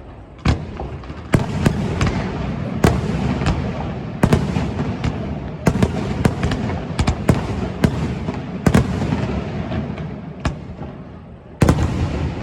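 Aerial fireworks barrage: shells bursting in rapid, irregular succession, sharp bangs over a continuous rumble and crackle.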